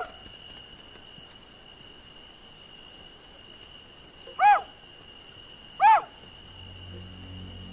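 A farmer's short, high-pitched shouted calls to scare deer out of his crops: three brief cries, one right at the start and two more about four and a half and six seconds in, each rising and falling in pitch. Steady insect chirring runs underneath.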